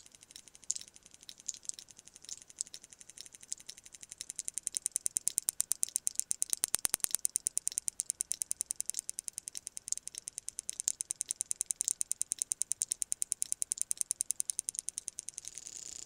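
Sperm whale echolocation clicks: a few scattered sharp clicks at first, then from about four seconds in a fast, regular train of clicks that swells and fades twice.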